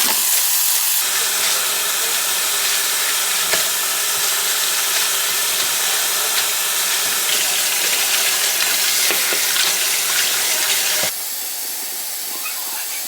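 A loud, steady rushing hiss with no clear pitch, which drops to a lower level about eleven seconds in.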